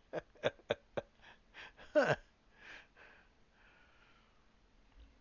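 A run of small sharp clicks in the first second and a half. Then, about two seconds in, a short vocal grunt that drops sharply in pitch, followed by soft breathing.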